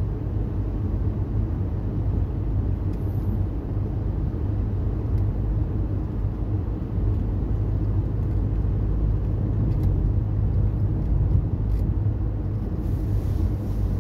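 Steady low rumble of a car's engine and tyres heard from inside the cabin while driving on the road.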